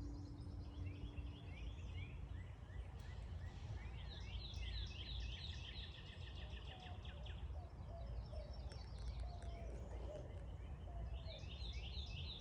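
Small songbirds singing in runs of rapid repeated chirping notes, over a steady low rumble.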